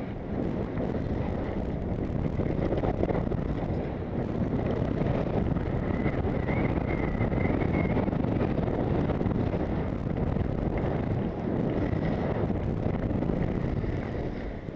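Wind rushing over the microphone of a head-mounted camera as a skier runs downhill: a steady, low buffeting rumble that eases off near the end.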